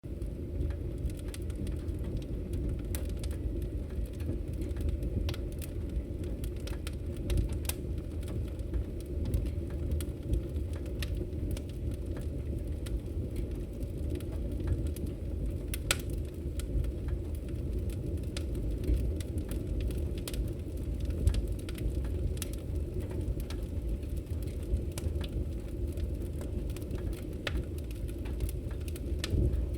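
Wood fire burning in a fireplace: a steady low rumble of flames with irregular crackles and pops scattered throughout, a few louder snaps among them.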